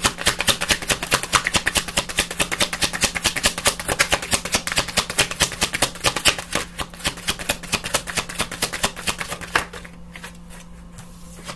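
A deck of reading cards shuffled by hand: a fast, continuous run of crisp card slaps that stops near the end.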